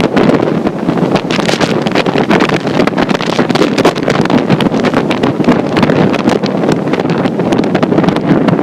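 Strong storm wind from Hurricane Sandy buffeting an iPhone's microphone: a loud, continuous rushing noise that keeps swelling and dipping with the gusts.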